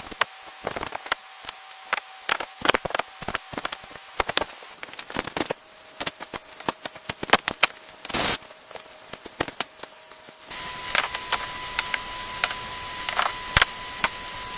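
Construction work: many sharp knocks and clicks in quick, irregular succession, with a louder, longer burst about eight seconds in.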